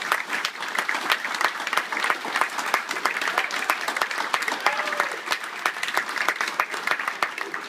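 Audience applauding, many hands clapping steadily, with a voice or two briefly heard near the middle.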